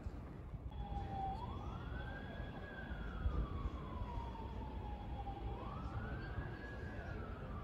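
Emergency vehicle siren wailing: a quick rise in pitch and a slower fall, repeating about every four seconds, starting about a second in over a low background rumble.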